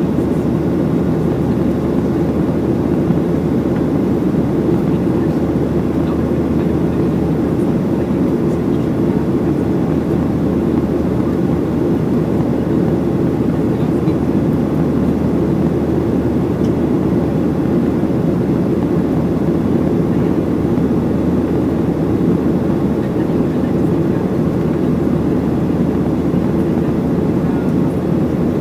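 Steady engine and airflow noise heard inside the cabin of a Boeing 737-700 from a window seat over the wing, its CFM56-7B turbofans running at a constant setting. The sound is a deep, even rumble that does not rise or fall.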